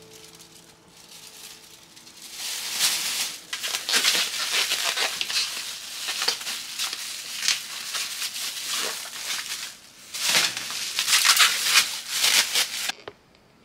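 Thin polyethylene food bags (I-Wrap) crinkling and rustling as they are handled and twisted shut, in repeated rustles that begin about two seconds in, get loudest near the end and then stop suddenly.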